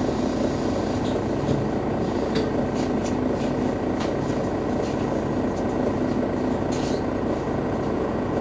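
Mercedes-Benz Citaro facelift city bus engine idling steadily at a stop, heard from behind the bus, with a few faint short clicks over it.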